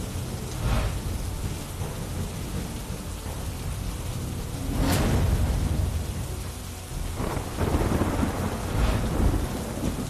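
Heavy rain falling steadily with rolling thunder: a rumble about a second in, the loudest peal about five seconds in, and more rumbling through the last three seconds.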